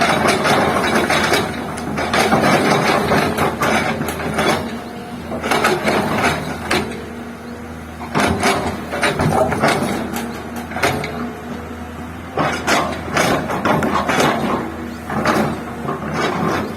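Komatsu excavator's diesel engine running steadily under repeated bouts of rattling, knocking and scraping as the machine works.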